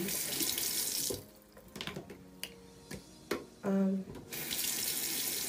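Bathroom sink tap running, shut off about a second in and turned back on about four seconds in, with a few small clicks while it is off.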